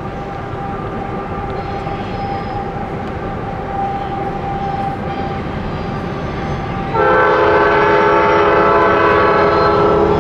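CN diesel freight locomotive approaching at the head of a container train, a steady rumble. About seven seconds in its air horn sounds one long blast, a chord of several notes held for over three seconds.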